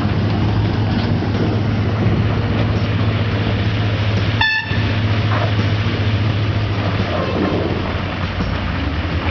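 Diesel engine of a JCB backhoe loader running steadily. About four and a half seconds in, a short, high horn toot sounds.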